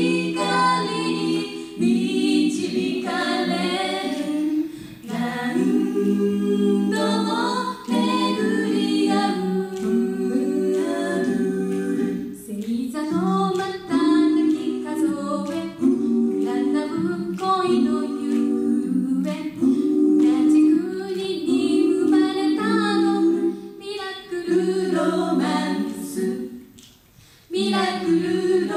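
A five-voice a cappella group singing a pop song in close harmony: sustained chords under a lead melody, with sharp vocal-percussion clicks keeping the beat. The voices drop out briefly about two seconds before the end, then come back in.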